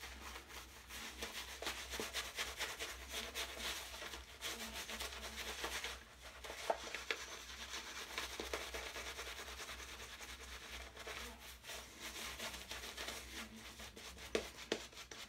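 PAA Peregrino shaving brush scrubbing lather over a stubbled face: a steady wet brushing and crackling, with a short break about six seconds in.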